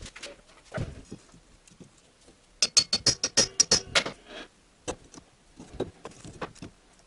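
A homemade serrated filter wrench clinking against a transmission's spin-on oil filter as it is worked onto the filter. There is a soft knock about a second in, then a quick run of about a dozen sharp metallic clicks with a ringing edge over a second and a half, then a few lighter clicks.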